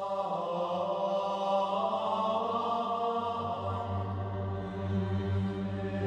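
Background music of slow chant-like voices holding long sustained notes over a low steady tone.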